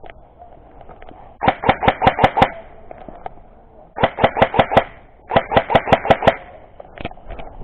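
Airsoft gun firing three full-auto bursts of rapid sharp clicks, each about a second long, the last two close together.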